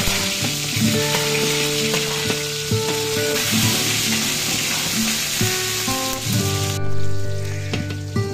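Sliced shallots frying in hot oil in an aluminium pot, a steady sizzle that drops away sharply about seven seconds in.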